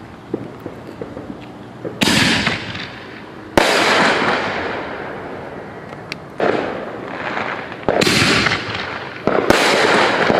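Aerial shells from a six-shot canister firework bursting overhead: five loud bangs a second and a half to three seconds apart, the first about two seconds in, each trailing off over a second or two. A few small pops come before the first bang.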